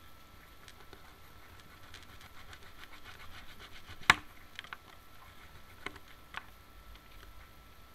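A thin wooden stick being cut: light scratching and small clicks, then one sharp snap about four seconds in as it breaks, followed by a few lighter clicks.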